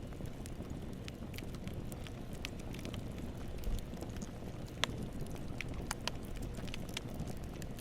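Campfire burning: a steady low rumble of flames with scattered sharp crackles and pops of burning wood, the loudest pop about five seconds in.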